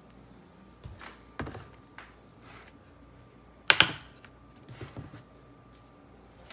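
A few light knocks and clicks, with a louder double knock a little after halfway through.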